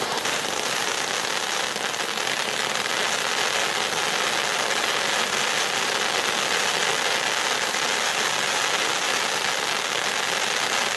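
A 200-gram Dazzling Diamonds ground fountain firework burning, giving a steady, even hiss of its spark spray.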